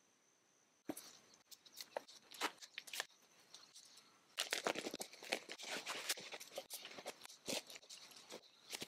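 Cordura tarp being handled and folded on dry leaf litter: fabric rustling and leaves crunching in irregular bursts, starting about a second in and busiest from about four seconds in.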